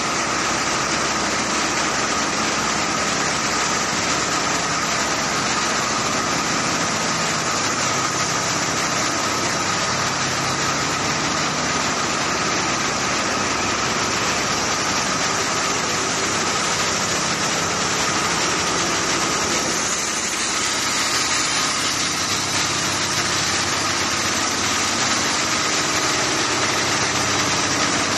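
Fiberglass mesh warp knitting machine running at speed: loud, steady mechanical noise with a constant high whine through it.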